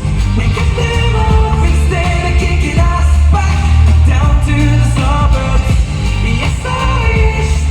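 Pop song playing: a singer's voice over a heavy bass beat.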